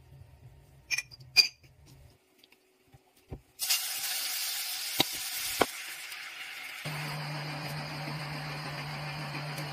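A few light clinks of a measuring spoon against a ceramic cup, then liquid pouring into a pot with two sharp clicks. About seven seconds in, this gives way to pieces of meat deep-frying in oil in a wok: a steady sizzling hiss over a low hum.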